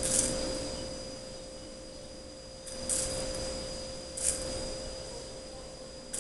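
A steady hum held on one pitch, with a few short rustling noises of handling, at about the start, three seconds in, four seconds in and at the end.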